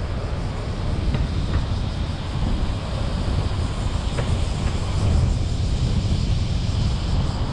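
A car driving along a town road, heard from the vehicle-mounted camera: a steady low rumble of tyre and engine noise, with a few faint ticks.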